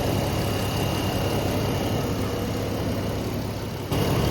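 Jeep engine idling steadily, a low hum with a thin steady high tone over it, growing a little louder near the end.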